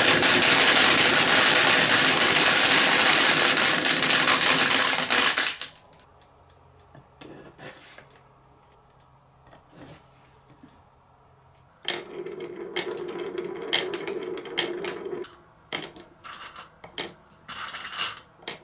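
Many marbles rattling and rolling together in a dense rush for about five and a half seconds, which cuts off suddenly. Scattered single marble clicks follow. About twelve seconds in, a battery-powered toy dump truck's small electric motor hums steadily for about three seconds, with marble clicks over it, and more clicks come near the end.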